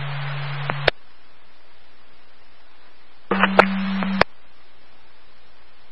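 Fire-department radio channel between transmissions: open-channel hiss with a steady low hum that cuts off with a click just under a second in, leaving a fainter hiss. Partway through, a brief key-up of about a second with a low hum and clicks but no words.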